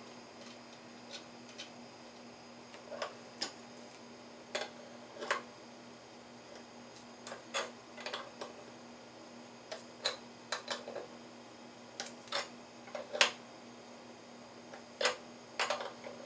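Irregular sharp metallic clicks and taps of a small hand tool working a nut onto the handle bolt of an aluminium electric tortilla press as it is assembled.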